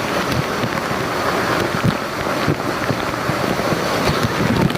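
Steady wind rush buffeting the microphone on a moving motorcycle, with road noise underneath.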